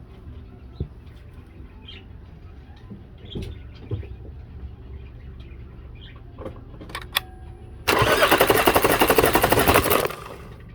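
Chevy Cruze engine cranked on its starter for about two seconds near the end, a fast even pulsing that stops abruptly, with a few light knocks before it. The cranking is a compression test of cylinder 1, which reads only about 80 psi: low compression behind the misfire in that cylinder.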